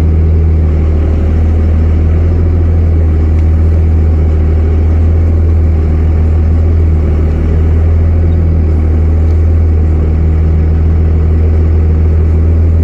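Pickup truck engine running steadily with a deep, even hum, heard from inside the cab.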